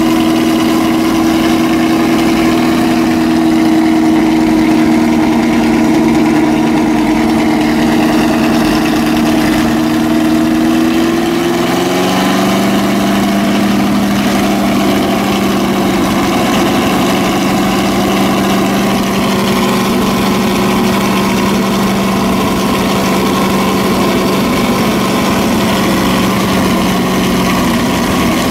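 Ford GT40 Mk II's 427 cubic-inch V8 idling steadily through its open exhaust pipes. Its idle settles to a lower, steady speed about twelve seconds in.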